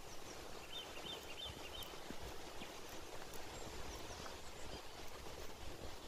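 Footsteps crunching along a gravel forest path over a low rumble, with a bird calling four quick, evenly spaced notes about a second in.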